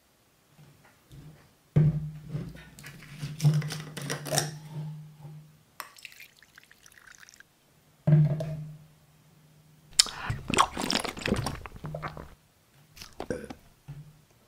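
Mouthwash poured from a plastic bottle into its screw cap, among sudden knocks and clicks of the plastic cap and bottle being handled.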